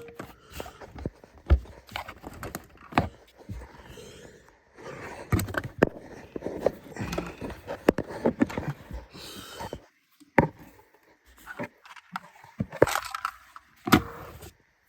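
Handling noise: scattered clicks, knocks and rustling, with a couple of near-silent gaps in the second half. No opener motor is running.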